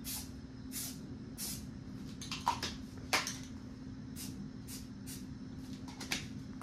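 Aerosol can of Rust-Oleum khaki camouflage spray paint sprayed in about ten short hissing bursts, roughly two a second, dusting a light coat onto a rifle stock. A couple of sharp clicks come midway.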